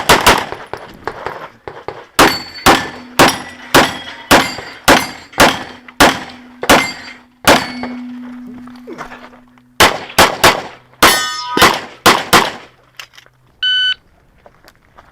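Rapid pistol fire from a Phoenix Trinity Honcho open-class pistol: about two dozen shots in two quick strings with a pause in the middle, several followed by the ring of struck steel targets. A brief beep-like tone sounds near the end.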